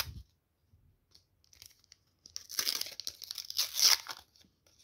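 Wrapper of a trading-card pack being torn open by hand: a few faint crinkles, then, about two seconds in, a loud stretch of tearing and crinkling that dies away near the end.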